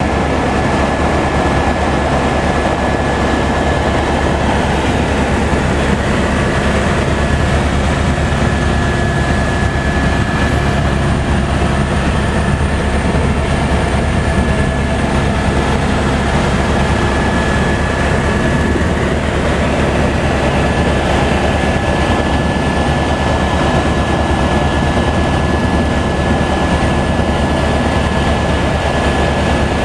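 Helicopter in flight: a loud, steady drone of rotor and turbine with a constant high whine.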